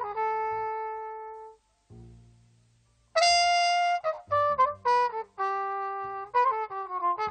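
Recorded jazz ballad: a horn holds long melody notes over low bass notes. About a second and a half in it drops out, leaving only the bass, then comes back louder and brighter about three seconds in with a phrase of changing notes.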